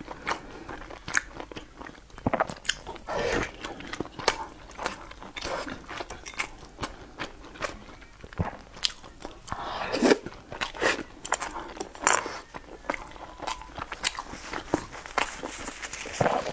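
Close-miked eating: a person biting and chewing food, with frequent short, sharp mouth clicks and smacks.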